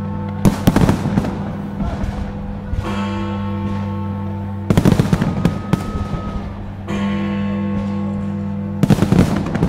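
A fireworks display going off in three quick volleys of bangs and crackles about four seconds apart. Between the volleys, music holds a long steady chord.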